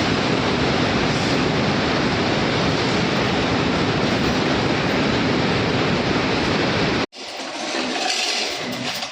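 Concrete cutting saw running as it cuts through a reinforced concrete roof slab, a loud, dense, steady noise. It cuts off abruptly about seven seconds in, followed by a quieter, uneven machine sound.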